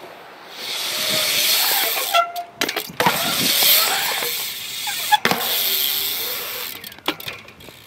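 BMX bike tyres rolling on the concrete of a skatepark bowl: a hiss that swells and fades three times as the rider carves up and down the walls. Sharp clacks of the bike against the concrete come a couple of seconds in, again around the middle and near the end.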